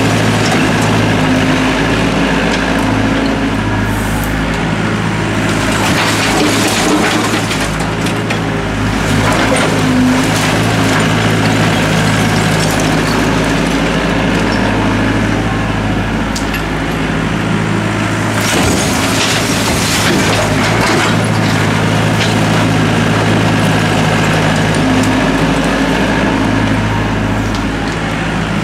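Doosan DX55W wheeled mini excavator's diesel engine running steadily under hydraulic load, with several clattering crashes of broken brick and concrete as the bucket digs through demolition rubble.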